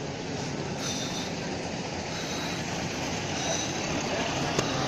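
A bus running close by, its engine rumble slowly growing louder, with brief high-pitched squeals three times.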